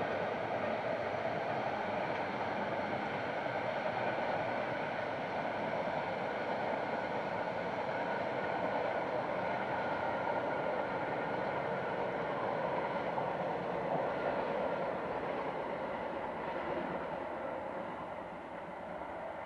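Colas Class 70 diesel locomotive hauling a freight train at a distance, its GE PowerHaul V16 engine running steadily, the sound fading as it draws away near the end.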